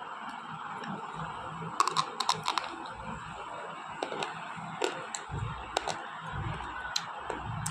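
Slate pencils bitten and crunched between the teeth: a quick run of sharp, crisp crunches about two seconds in, then single crunches roughly once a second.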